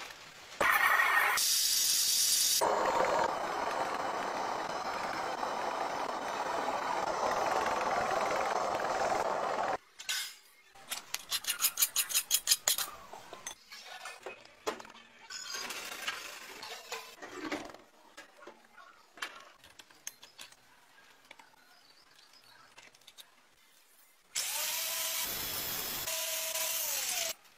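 A belt sander grinding a steel blade, a steady rasping noise for about seven seconds. It is followed by a quick run of sharp clicks and scattered small knocks. Near the end an angle grinder grinds steel with a steady whine for about three seconds.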